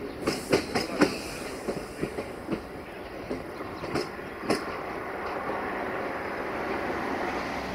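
Passenger coaches rolling past on steel rails, their wheels clacking over the track joints and points in irregular sharp knocks for the first few seconds. The knocks then give way to a steady rolling rumble.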